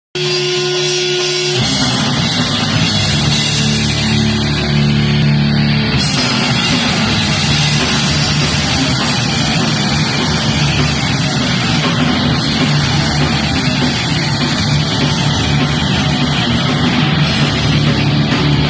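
Live crust punk band playing loud: distorted electric guitar, bass and drum kit. It opens on a single held note, and the full band comes in about a second and a half in.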